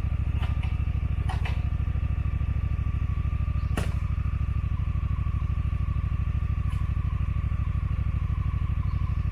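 Honda Africa Twin's parallel-twin engine idling steadily, with a few light clicks, the clearest about four seconds in.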